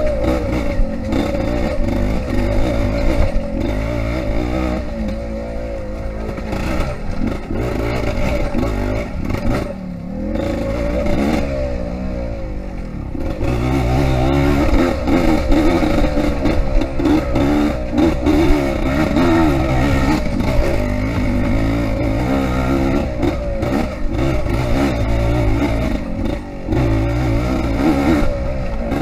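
Yamaha IT 200 two-stroke single-cylinder dirt bike engine under way off-road, its pitch rising and falling as the throttle is opened and closed.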